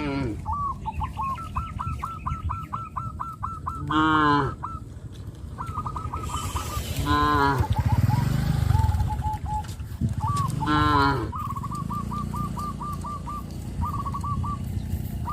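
Cattle mooing repeatedly, a call about every three to four seconds, each one falling in pitch. Between the moos a bird calls in quick runs of short, repeated high notes.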